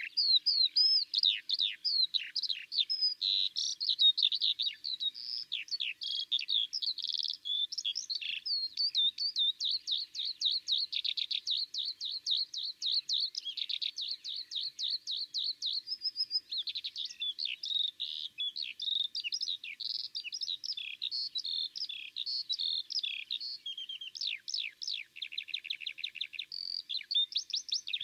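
Eurasian skylark singing a long, unbroken stream of quick chirps and warbled notes, with a brief held note about midway and a fast, even trill near the end.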